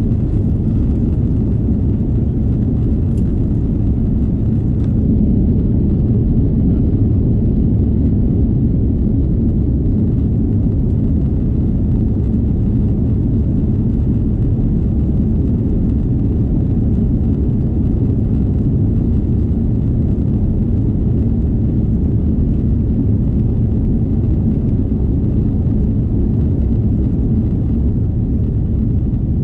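Airbus A330 cabin noise: a steady low rumble of the engines and airflow heard from inside the cabin.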